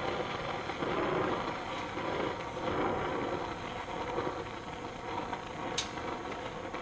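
Gas brazing torch flame hissing steadily as it heats a bronze cymbal and a silver-solder rod, with a single brief sharp tick about six seconds in.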